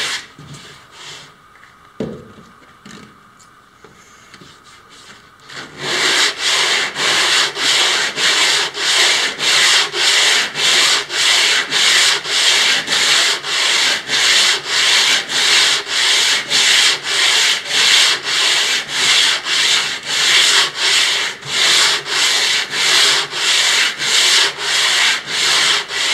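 Hand sanding of a wooden kayak hull: sandpaper on a hand block rasping back and forth in quick, even strokes, about two a second. The first few seconds are a pause with a single low knock, and the steady strokes start up about six seconds in.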